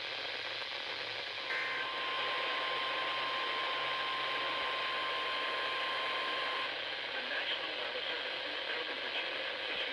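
NOAA Weather Radio warning alarm tone: one steady single-pitched tone that starts about a second and a half in and cuts off suddenly about five seconds later, over the constant hiss of a weather-radio receiver. The tone signals that an emergency alert message follows.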